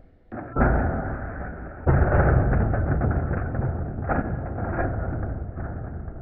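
Toy cars rolling and clattering down a slide, slowed down: a low rumble with scattered clicks that starts suddenly about half a second in and gets louder near two seconds.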